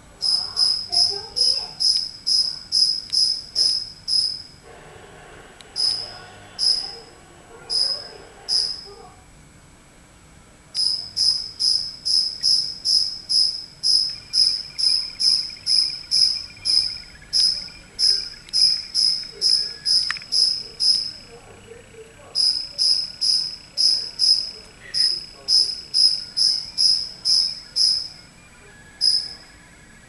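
A cricket chirping: short, sharp, high chirps repeated about two and a half times a second, in runs broken by a few pauses of a second or two.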